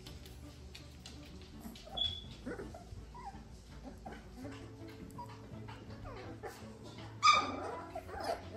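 Young puppies playing together, with small squeaks, whimpers and yips throughout and one louder yelp about seven seconds in.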